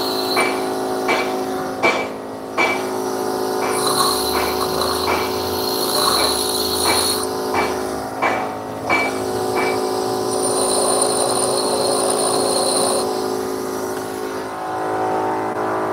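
Bench grinder running with a steady motor hum while a high-speed steel lathe tool bit is pressed against the grinding wheel to sharpen its cutting edge. Two spells of high-pitched grinding come about four seconds in and again around ten seconds in. Sharp ticks repeat through much of it, and the motor hum stops near the end.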